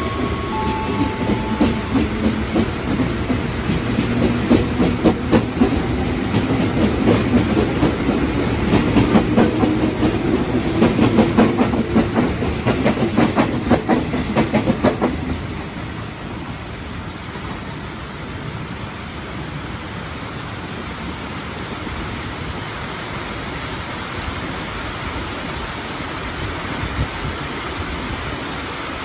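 JR 205 series electric commuter train passing close by, its wheels clicking and clattering over the rail joints, until it clears about halfway through. After that, steady rain hiss remains.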